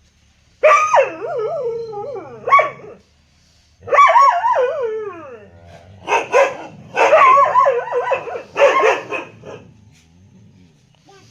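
A dog howling in two long, wavering calls, then barking in a quick run of barks from about six seconds in until near the end.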